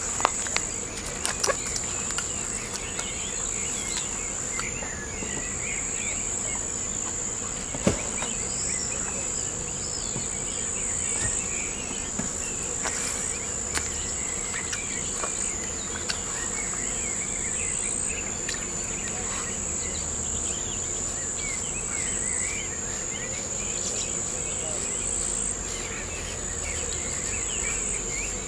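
A steady high-pitched insect chorus, with birds chirping here and there. A few sharp clicks come near the start and one about eight seconds in.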